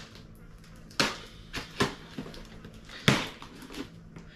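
A scraper jabbing and dragging at the taped cardboard of a scooter deck box to cut it open: a handful of short, sharp scrapes, the loudest about three seconds in.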